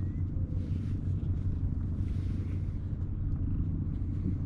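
A steady low rumble, with a soft hiss rising and fading a couple of times.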